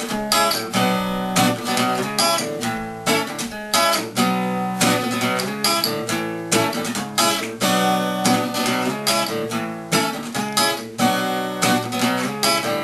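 Acoustic guitar strumming chords in a steady rhythm, with no voice.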